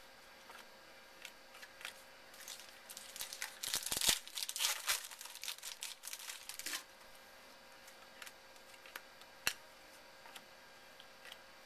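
Trading-card pack wrapper being torn and crinkled open for a few seconds, loudest about four seconds in, followed by a few faint taps as the cards are handled.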